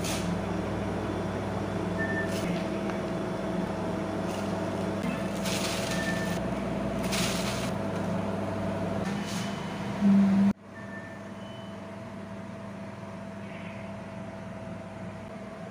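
Steady hum of a running appliance, with a few bursts of plastic-bag rustling about five to seven seconds in. The hum drops quieter about ten and a half seconds in.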